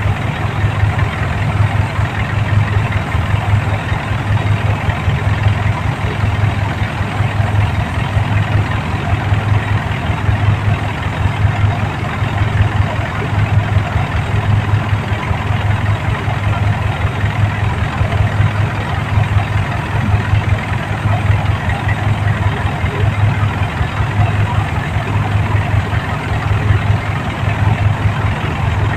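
New Holland rice combine harvester's diesel engine running steadily, its low hum throbbing at a regular beat of about once a second.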